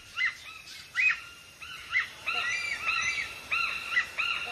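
Hornbills calling: a series of short, high, arching call notes. They come singly at first, then thick and overlapping from about two seconds in, as from several birds.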